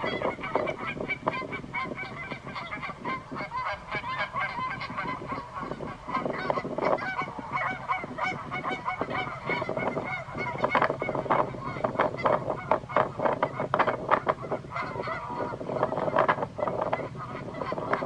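A flock of waterbirds calling, with many short calls overlapping thickly and without a break, growing louder about halfway through.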